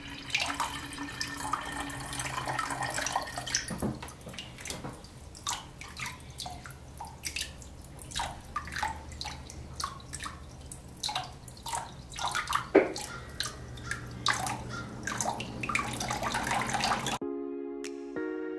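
Water trickling from a bottle's spout onto a spinning plastic-spoon water wheel and splashing into a plastic tub: irregular drips and splashes, with one sharper knock about two-thirds of the way through. Background music takes over near the end.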